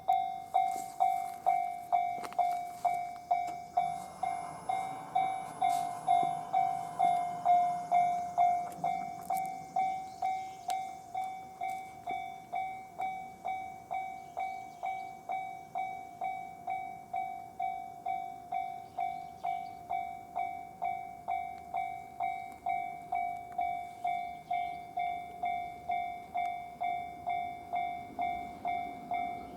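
Japanese railway level crossing's electronic warning bell ringing in a steady, even repeat of about two or three strokes a second, each stroke one bright tone with fainter overtones. From about four to nine seconds in a rushing noise rises beneath it, typical of a train passing over the crossing.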